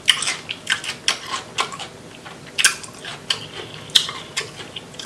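Boiled crawfish being peeled by hand at close range: irregular sharp clicks and crackles of shell breaking and wet, sauce-coated fingers, several a second, with two louder cracks about two and a half and four seconds in.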